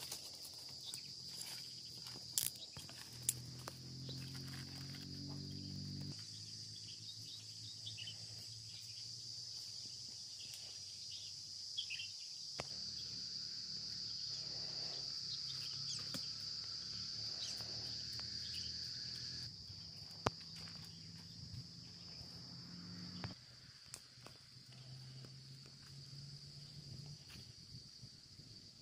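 A steady, high-pitched chorus of insects buzzing, with scattered small clicks and snaps and a low hum underneath.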